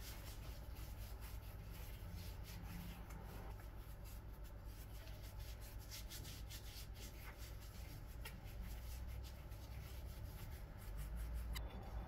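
Hands scrubbing a whole lemon with a gritty white powder in a ceramic bowl, cleaning the peel: steady rubbing of skin on peel, full of small crackles from the grains.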